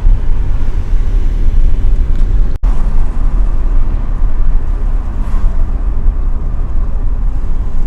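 Steady rumble of road and engine noise inside a moving car, heaviest in the low end, briefly cut off about two and a half seconds in.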